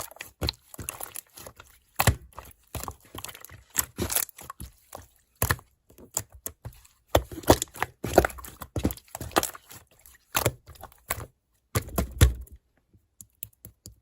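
Slime being squeezed and poked by hand, giving a run of irregular clicks and pops with short pauses between them.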